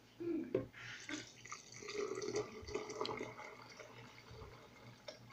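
Water poured in a stream into a Cuisinart blender jar onto rolled oats, splashing as the jar fills, starting about a second in.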